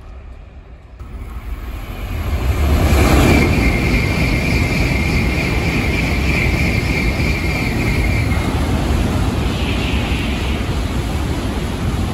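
Shinkansen bullet train running through a station at speed without stopping: a rush that builds about two seconds in, then a steady loud roar as the cars pass, with a high steady whine through the first half.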